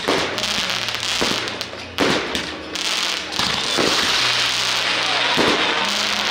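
Aerial fireworks going off: a series of sharp bangs roughly a second apart, with a dense crackling of bursting shells from about halfway through.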